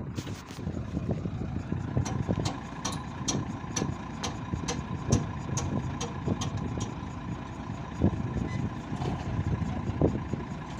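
Vishal combine harvester standing in the field with its engine running at idle: a steady machine drone with a regular ticking clatter, about two to three ticks a second.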